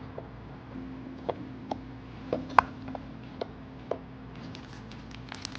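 Sparse light clicks and taps of handling, with a faint steady hum underneath; near the end the knife's packaging starts to crinkle in quick small crackles.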